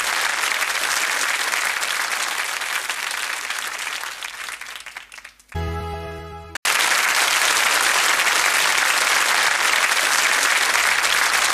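Studio audience applause fading away over about five seconds. A short musical chord of about a second follows and stops abruptly, then loud, steady applause starts again.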